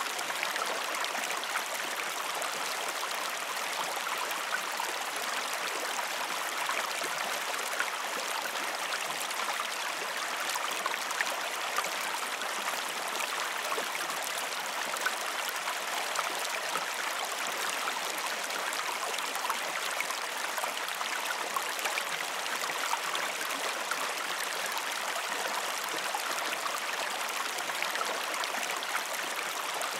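River water flowing in a steady rush, with many small splashes flecked through it.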